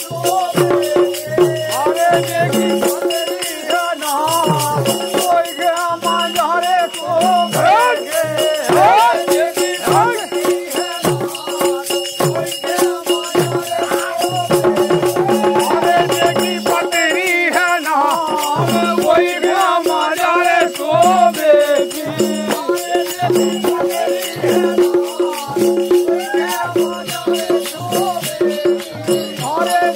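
Bundeli Rai folk music: barrel drums and a shaken jhika, a wooden frame of metal jingles, keep a fast, driving beat. Above them run two steady held tones and a wavering melodic line.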